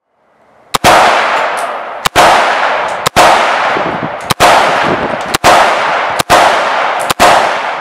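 Seven rifle shots from an AR-style rifle, fired about one a second at a slightly uneven pace. Each shot is followed by a long fading echo.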